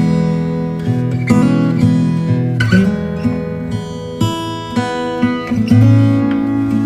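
Background music: an acoustic guitar strumming and picking chords.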